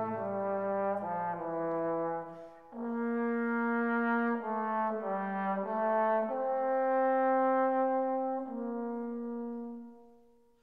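Background music: a slow brass melody of long held notes, fading out near the end.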